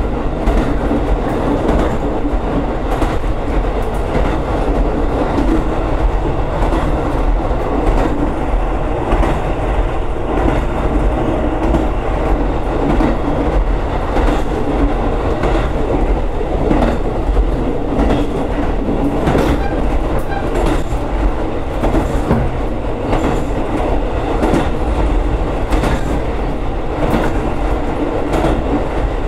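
Diesel railcar on the Senmo Line running along the track, heard from inside the car: a steady rolling rumble with the wheels clicking over rail joints again and again.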